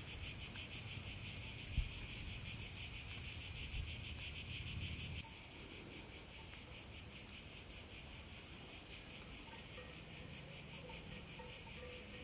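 A steady chorus of chirping insects, a fast, even pulsing, that drops to a quieter level about five seconds in.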